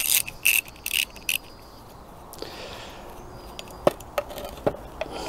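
Small ratchet spanner clicking in four short bursts as it unscrews a grease nipple, then three sharp clicks near the end as the nipple is turned out by hand.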